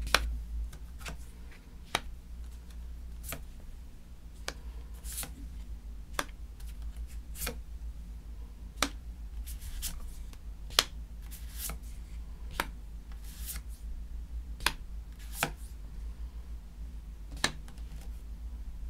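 Tarot cards being handled and laid down one by one on a tabletop, a series of light sharp taps and snaps roughly once a second, over a low steady hum.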